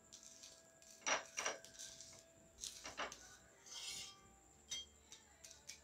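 Flat metal spatula scraping and clinking on a dosa tawa: several faint, separate clicks and scrapes, with a short scrape about four seconds in.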